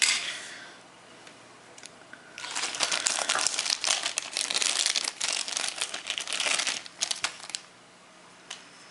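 Clear plastic zip bag crinkling and rustling as it is handled in the hands, starting about two and a half seconds in and lasting about five seconds.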